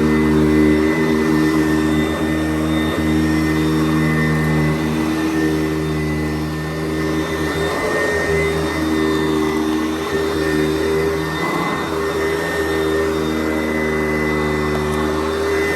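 Sanitaire SC889B commercial upright vacuum cleaner running steadily, with a constant motor hum and only slight dips in loudness as it is pushed over the floor.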